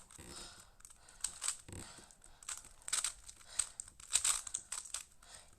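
Magnetic smart 3x3 Rubik's cube being turned fast during a speedsolve: irregular runs of quick plastic clicks and rasps as the layers snap round.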